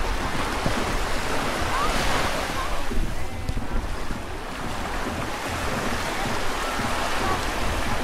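Small waves lapping and washing onto a sandy shore, with a swell of surf about two seconds in, wind rumbling on the microphone, and faint distant voices of bathers now and then.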